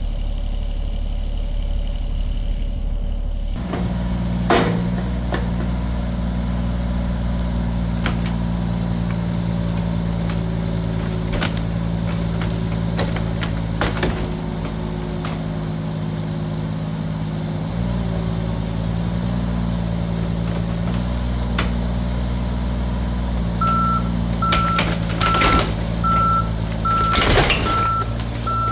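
John Deere 26G mini excavator's diesel engine running under load, its note shifting as the machine works, with scattered knocks and cracks. From about 24 s in its travel alarm beeps steadily, over a burst of louder knocks and crashes near the end.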